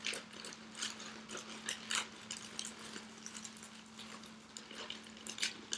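Plastic mailer bag crinkling and rustling in irregular short bursts as hands rummage inside it, over a faint steady low hum.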